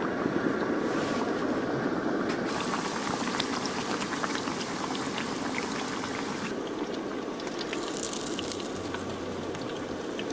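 A breaded pork cutlet deep-frying in hot oil: a steady, dense sizzle full of small crackles and pops.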